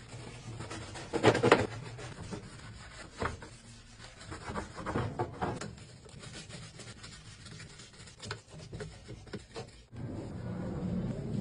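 Irregular rubbing and scraping strokes of scrubbing while cleaning a washing machine, the loudest about a second and a half in.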